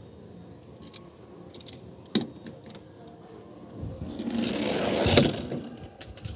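Toy Mack truck cab rolling down a plastic playground slide, its wheels whirring on the plastic and growing louder for about a second and a half as it speeds up. A sharp click about two seconds in.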